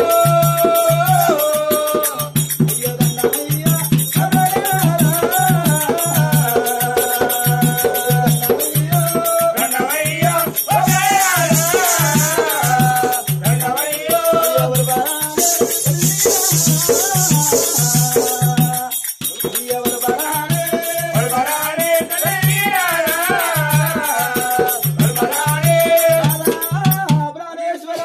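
Telangana Oggu Katha folk music: a steady low drum beat about twice a second, a wavering melody line over it, and spells of bright jingling.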